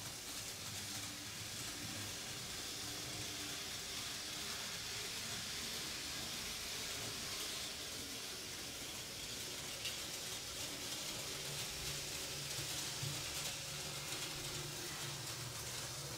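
Märklin 3021 H0 model V200 diesel locomotive running on test after repair, pulling coaches over the track: a steady rolling hiss of wheels on metal rail with a low motor hum that grows stronger about twelve seconds in.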